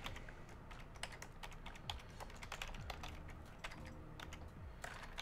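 Typing on a computer keyboard: a run of quick, uneven keystroke clicks, fairly faint.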